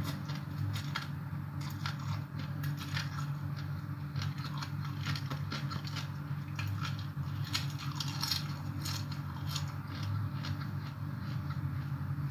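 A person chewing and crunching a mouthful of papaya salad and rice noodles, with irregular short wet clicks and crunches. A steady low hum runs underneath.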